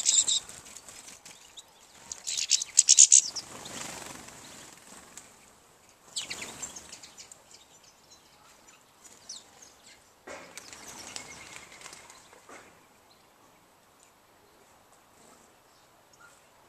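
Finches twittering in two loud bursts of rapid high notes, one at the start and another about two to three seconds in, as birds fly off a seed feeder. Then quieter outdoor noise swelling a few times and fading.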